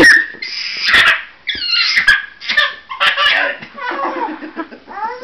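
A run of short, high-pitched cries, one after another, with pitch sliding up and down.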